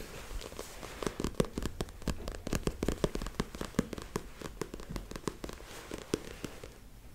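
Handling noise on the microphone: dense, irregular crackling and clicking that thins out near the end.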